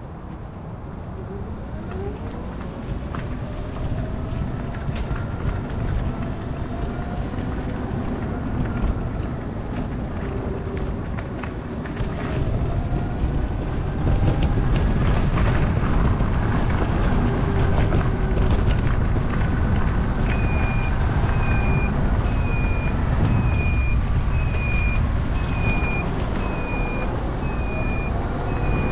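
Trike on the move: its motor's pitch glides up and down as it speeds up and slows, over a steady low rumble of road and wind, getting louder about halfway through. A high-pitched beep starts repeating, a little more than once a second, about two-thirds of the way in.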